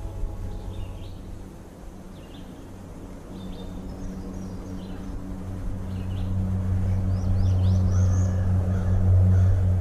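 Songbirds chirping in short, repeated calls about once a second, with a quicker run of calls past the middle. Under them a low drone grows louder over several seconds and falls away near the end.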